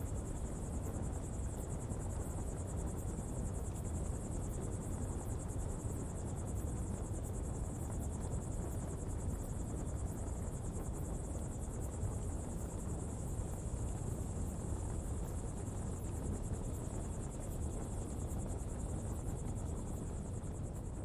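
Coal pottery fire burning with a steady low rushing noise, under a continuous high chirring of crickets.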